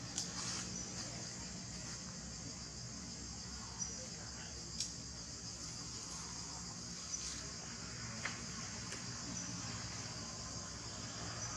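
A steady, high-pitched chorus of forest insects, with five short sharp clicks scattered through it.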